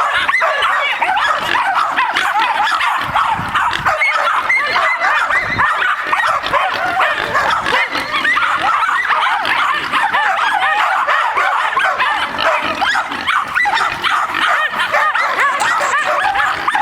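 Two jagdterriers barking and yapping continuously at a wild boar, their high, rapid barks overlapping without a break: dogs baying a boar in hunting-dog training.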